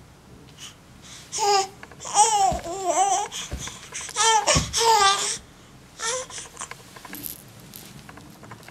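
Six-month-old baby babbling in a run of high, wavering vocal sounds lasting about four seconds, with one short sound about six seconds in.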